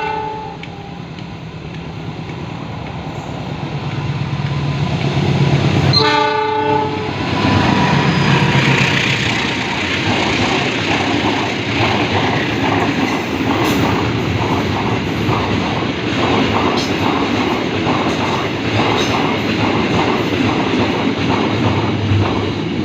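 A diesel-hauled freight train of tank wagons passing. The locomotive's rumble builds as it approaches and it gives a short horn blast about six seconds in. The wagons then clatter rhythmically over the rail joints.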